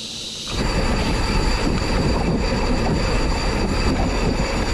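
Wind rushing over the microphone with a low rumble as a mountain bike rolls quickly along a concrete road; the noise comes in suddenly about half a second in and then holds steady.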